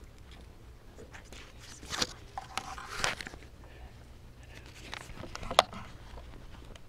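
Quiet room full of seated people making small handling noises: scattered rustles, scrapes and clicks of paper, pens and clothing, a louder patch of rustling about two to three seconds in and a sharp click near five and a half seconds.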